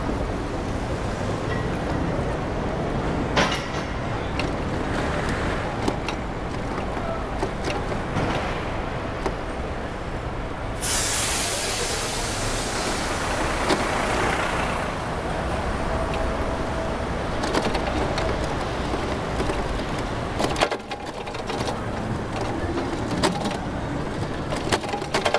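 Steady city street traffic and wind rush at a moving bike-mounted camera. About eleven seconds in, a loud air-brake hiss from a truck or bus starts sharply and fades over three to four seconds.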